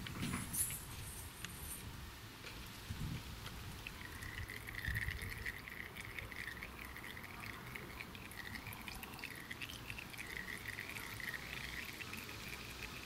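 A thin stream of black used engine oil trickling and dripping from a cultivator's open drain hole into oil already pooled in a plastic container, with a few small clicks in the first couple of seconds. From about four seconds in, a faint wavering high-pitched tone runs alongside.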